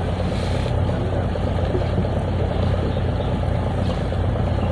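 Steady low drone of a fishing boat's engine running, with no change in speed.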